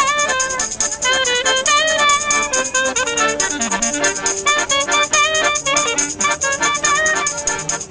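Lively instrumental music: a quick, ornamented fiddle-like melody over a lower moving part, with a fast, steady rattling percussion throughout.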